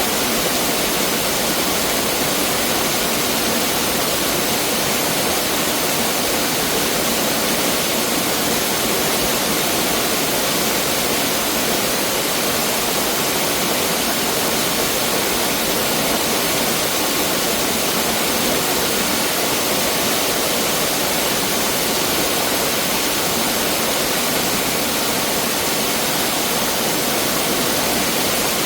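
Mountain stream rushing steadily over rocks, a constant loud water noise with no change.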